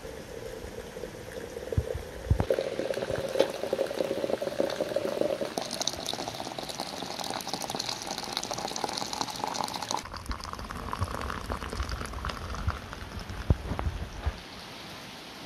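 Water poured in a thin stream into a glass teapot of dried herbs and flowers, splashing steadily, its pitch rising as the pot fills.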